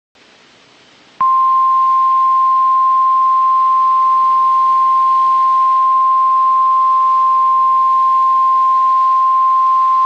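NOAA Weather Radio 1050 Hz warning alarm tone: one loud, steady tone that begins about a second in, after faint radio hiss, and holds for about nine seconds. It signals that a warning message is about to be broadcast.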